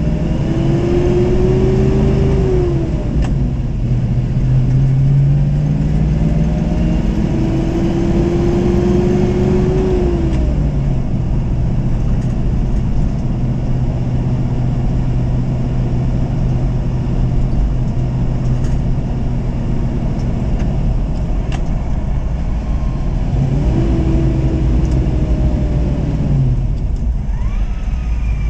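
GM Performance 6.2-litre LS3 V8 heard from inside the cab through its Magnaflow exhaust while driving. The engine note climbs twice under acceleration and drops back at each upshift of the manual gearbox, then holds steady at cruising speed. Near the end it climbs briefly and falls away as the truck slows.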